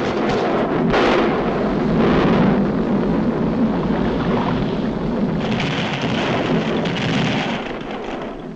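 Cartoon sound effects of a volcano erupting: a continuous heavy rumble and roar, surging about a second in and again around five and a half seconds.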